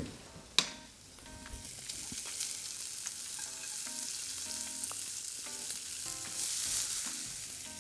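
Diced bacon and sliced red onion sizzling in olive oil in a non-stick frying pan as the onion is tipped in and stirred with a wooden spatula. A sharp click comes about half a second in, and the sizzle swells briefly near the end.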